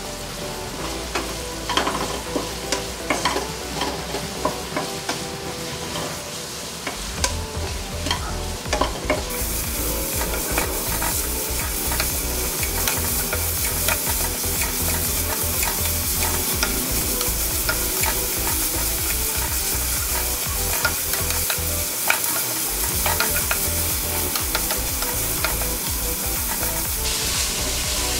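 Sliced onions and curry leaves frying in hot coconut oil in a kadai, sizzling steadily while a wooden spatula stirs and scrapes them, with many small clicks of the spatula against the pan. The sizzle grows brighter and fuller about nine seconds in.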